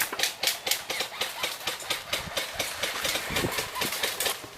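Quick footsteps of a player running, about four to five steps a second, louder in the first couple of seconds and softer towards the end.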